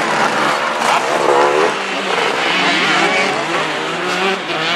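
Several motocross bikes' engines revving together as the riders pull away, their overlapping engine notes rising and falling.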